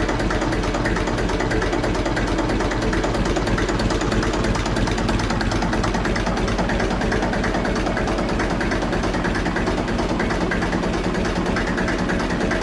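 Old engine running steadily at idle, an even, unchanging beat.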